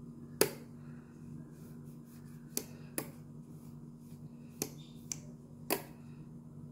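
Rocker switches on a modular wall switchboard clicking as they are pressed while the board is wiped with a cloth: about six sharp separate clicks, the loudest about half a second in. A steady low hum runs underneath.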